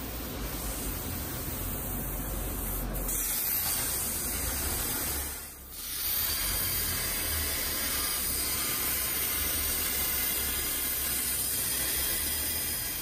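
CNC plasma cutter's torch cutting steel plate: a loud, steady hiss of the plasma arc and air jet. It drops out briefly about five seconds in, then resumes.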